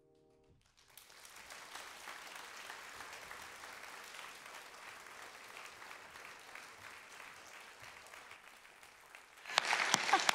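Audience applauding, beginning about a second in as the piano fades, then growing much louder near the end.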